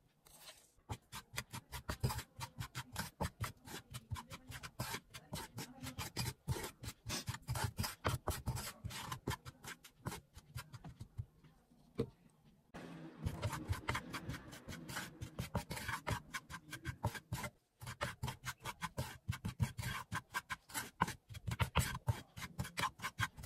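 Wooden spatula scraping and stirring dry curry powder and ground black pepper around a frying pan in rapid back-and-forth strokes as the spices are dry-roasted, with a short lull about halfway through.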